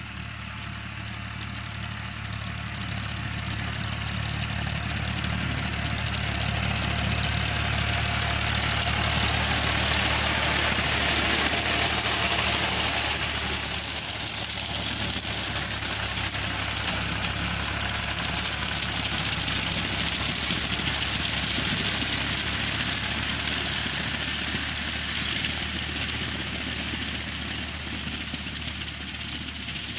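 Powertrac 445 tractor's diesel engine running steadily under load while working a paddy reaper, with a hiss over the low engine note. It grows louder as the tractor comes close, about a third of the way in, then fades a little as it moves away.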